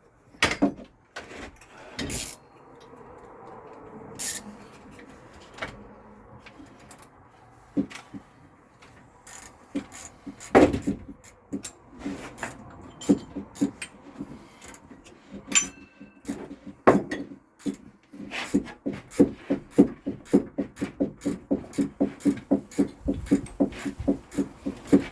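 Plastic pipe being worked and pushed onto a fitting: scattered knocks, clicks and rubbing. In the last several seconds a fast, regular series of knocks runs at about three or four a second.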